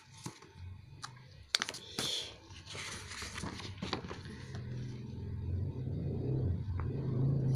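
A folded glossy paper leaflet being unfolded and handled: rustling and crinkling paper, with a few sharp clicks about one and a half seconds in. A low hum builds underneath through the second half.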